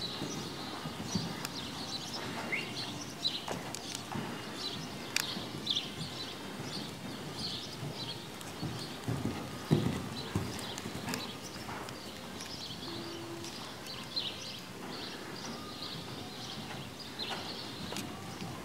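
Horse cantering on the sandy footing of an indoor riding hall: muffled hoofbeats going on steadily, with one sharp knock about ten seconds in.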